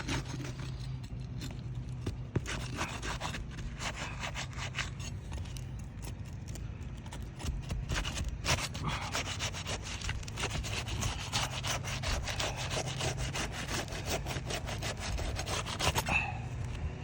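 Asphalt roofing shingle being pulled loose from its tar seal strip: repeated scraping and rubbing strokes, coming faster and denser in the second half.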